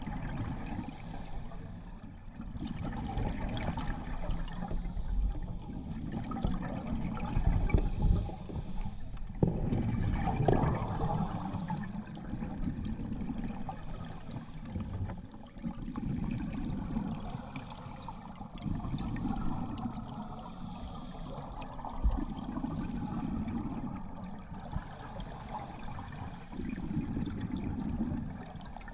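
A scuba diver's regulator underwater, exhaled bubbles gurgling out in repeated breaths about every three seconds, muffled through the camera's waterproof housing.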